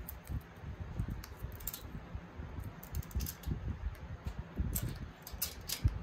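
Scattered metallic clicks and clinks of a torque wrench and socket working the cylinder head nuts of a VW 1600cc air-cooled engine as they are torqued to 7 ft-lb, over low handling thumps, the loudest just before the end.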